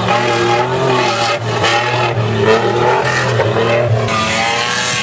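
Toyota Land Cruiser 100-series engine running hard at high revs while climbing across a sand dune, the revs rising and falling, with the spinning wheels throwing sand.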